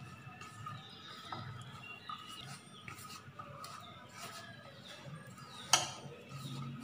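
Hands rubbing and crumbling damp ragi (finger millet) flour in a steel vessel, working the sprinkled water in so that it stays lump-free: faint soft rustling, with one sharp click a little before the end.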